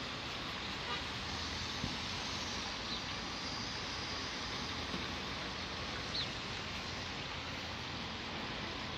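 Steady hiss of road traffic, with a few faint short clicks and two brief high chirps.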